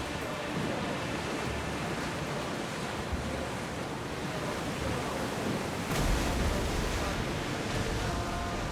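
Sea waves washing steadily, with wind rumbling on the microphone; a stronger gust and surge comes about six seconds in.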